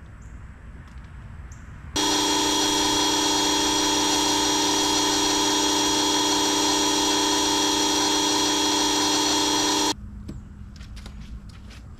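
A motor-driven machine running at one steady speed for about eight seconds. It has a constant whine of several fixed pitches over a broad rush, and it starts and stops abruptly.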